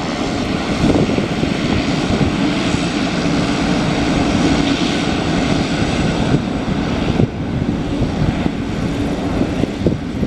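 Pilatus PC-12's single turboprop engine and propeller running as the aircraft taxis: a loud, steady drone with a hum and a hiss over it, easing slightly about seven seconds in.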